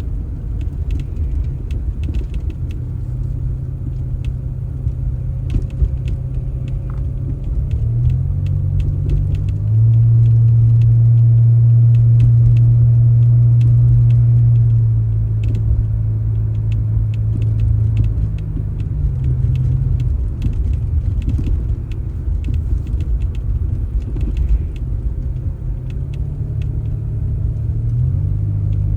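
An engine running with a low rumble. Its revs rise about a third of the way in and hold loud for several seconds, ease back, then climb again near the end, as machinery working under changing load does.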